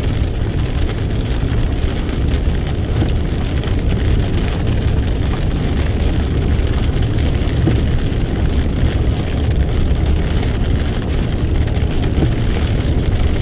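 Steady road noise of a car driving at highway speed, heard from inside the cabin: a low rumble of engine and tyres under an even hiss of rain and wet pavement.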